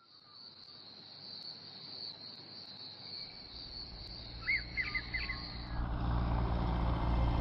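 Insects chirring steadily at dusk, with a bird giving four quick rising-and-falling chirps about four and a half seconds in. A light propeller plane's engine drone swells in underneath and takes over near the end as the chirring stops.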